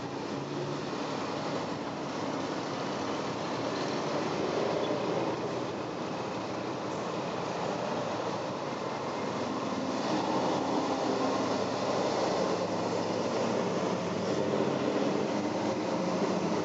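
Engines of a slow procession of classic and sports cars running as they drive past one after another, a continuous mix of exhaust rumble and tyre noise that grows a little louder in the second half.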